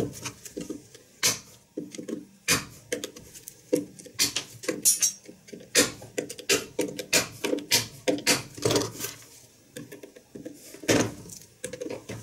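Electrician's combination pliers working nails out of a plywood board: a run of irregular sharp metal clicks and knocks as the jaws grip, lever and pull the nails.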